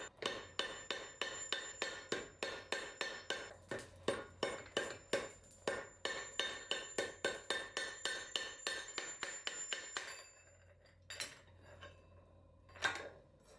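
Hammer blows on steel as a cup-shaped dome is forged, a steady run of ringing metallic strikes about three a second. They stop about ten seconds in, followed by two single strikes.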